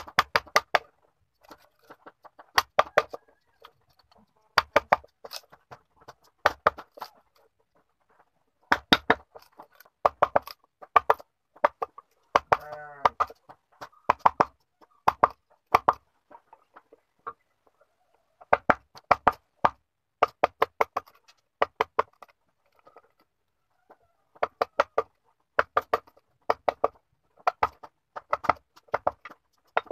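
Hammer striking a wooden-handled chisel to chop out the inside of a small wooden box: sharp knocks in quick bursts of two to four blows, separated by short pauses.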